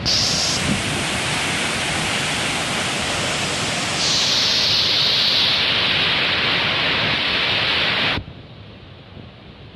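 Waterfall rushing: a loud, steady hiss of falling water that shifts abruptly about four seconds in and drops to a much quieter rush near the end.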